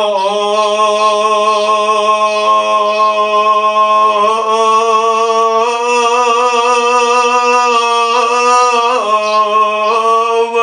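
A man's unaccompanied voice chanting one long drawn-out note in a Kashmiri devotional Muharram recitation. It is held for about ten seconds with a few small shifts in pitch, and breaks off at the end.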